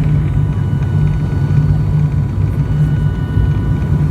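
Steady cabin drone of an ATR 72-500 turboprop in flight: a loud, even low hum from its propellers and Pratt & Whitney PW127 engines, with faint constant higher tones above it.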